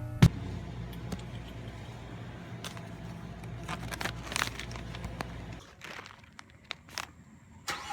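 Low steady rumble of a car, with scattered clicks and handling noises; the rumble drops away a little over halfway through.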